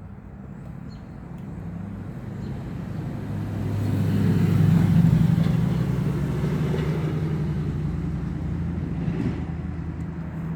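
A motor vehicle passing by: its engine hum grows louder to a peak about halfway through, then slowly fades away.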